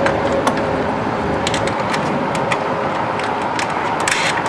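Scattered light metallic clicks and taps of hardware being fitted, over a steady mechanical rumble.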